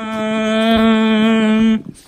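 A person's voice drawing out the end of a sing-song call to a dog as one long steady note, which stops shortly before the end.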